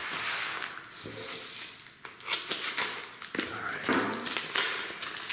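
Packing material rustling and crinkling as bottles of hot sauce are taken out of a shipping box.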